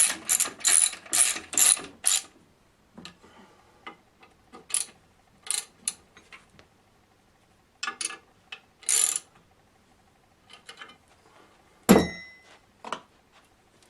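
Ratchet wrench clicking as it tightens bolts: quick even strokes, about two or three a second, for the first two seconds, then scattered short bursts of clicks. A sharp metallic clank with brief ringing comes near the end.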